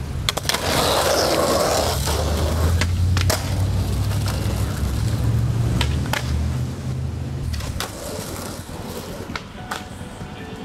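Skateboard wheels rolling on pavement: a steady low rumble with several sharp clacks. The rumble stops about eight seconds in, leaving a few quieter clacks.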